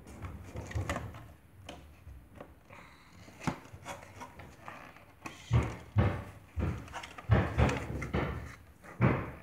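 Clear plastic packaging crinkling and rustling as it is handled and pulled open, with scattered clicks and knocks. It gets louder and busier about halfway through, with a run of irregular thumps and rustles.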